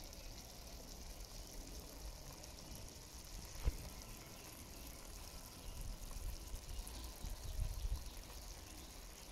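Mackerel run down in coconut milk simmering in an aluminium pot over an open fire, a faint steady bubbling hiss. There is one sharp click about three and a half seconds in, and some low rumbling from about six to eight seconds.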